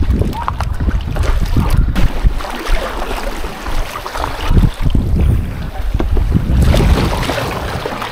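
Wind rumbling on the microphone over choppy water, with small waves splashing and lapping against a small boat. A louder rush of splashing comes about seven seconds in.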